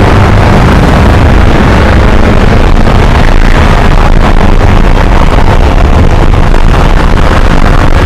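Loud, steady rumbling noise with no clear tone, heaviest in the low range and unbroken throughout.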